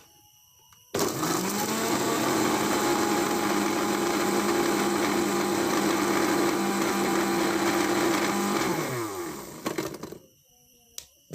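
Electric blender switched on about a second in, running steadily as it purées bilimbi fruit with salt water. It is switched off near the end, and the motor's pitch falls as it spins down.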